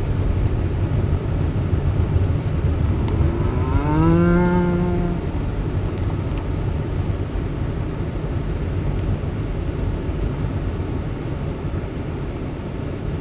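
Steady low road rumble inside the cabin of a Mercedes-Benz S400d on the move. About three seconds in, a person gives a long rising 'mmm' that holds for about two seconds.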